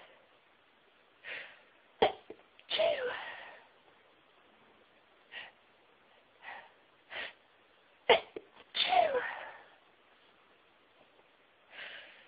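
A person sneezing twice, about six seconds apart. Each sneeze opens with a sharp catch and follows with a longer, louder 'choo' that falls in pitch. Quieter short intakes of breath come in between.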